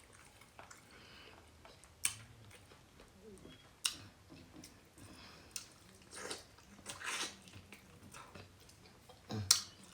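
A person eating close to the microphone: quiet chewing and mouth noises, with a few sharp clicks about two, four and nine and a half seconds in.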